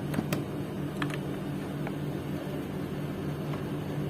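Split air conditioner's outdoor unit running in cooling mode, a steady hum, with a few light clicks in the first second or so from unscrewing its plastic connection cover with a Phillips screwdriver.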